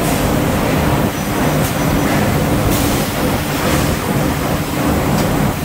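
Orbital ring stretch-wrapping machine running as it wraps coil springs in plastic film: a steady mechanical hum, broken by a few short hisses.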